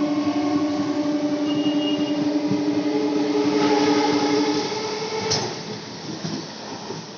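Electric multiple-unit local train running along the rails, a rumbling clatter with a steady electric hum that stops about two-thirds of the way through. There is a sharp click soon after, and the whole sound fades away toward the end.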